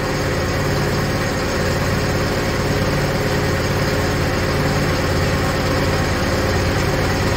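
Clausing metal lathe running with an end mill in its chuck, cutting a metal workpiece clamped in a vise on the cross slide: a steady machine hum as the cutter is fed along the cut.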